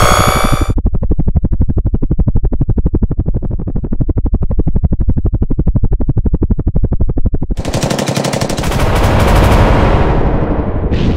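A falling electronic sweep cuts off just under a second in. Then an attack helicopter's cannon fires one long, even, very rapid burst lasting about seven seconds, followed near the end by a louder rushing blast.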